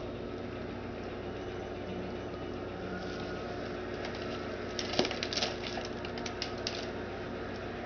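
Plastic cat food bag crinkling and crackling as a cat claws and bites at it to tear it open. A cluster of sharp crackles comes about five seconds in, over a steady low hum.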